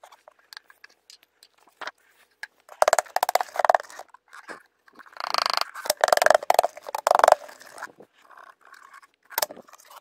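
Clear plastic dust bin of a Hoover WindTunnel 2 vacuum being lifted, tipped and tapped to empty collected sand and carpet fibres onto a sheet of paper: scattered small clicks, then two louder stretches of scraping and rattling, one about three seconds in and a longer one from about five to seven seconds in.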